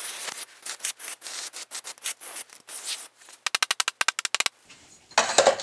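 Hands rubbing and scraping at a freshly rammed green-sand mould, which feels loose. The scraping comes in short irregular strokes, followed about three and a half seconds in by a quick run of about a dozen clicks.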